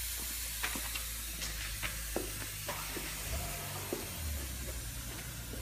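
Steady hiss of compressed natural gas flowing through a CNG fill nozzle and hose into a bus's gas tanks, over a low hum, with a few light clicks.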